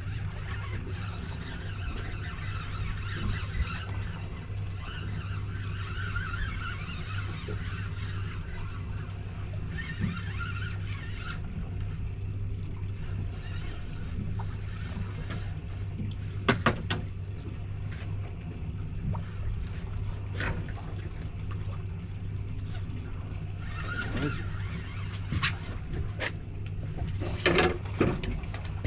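Suzuki outboard motor idling with a steady low hum. A few sharp knocks and clicks come in the second half and bunch up near the end.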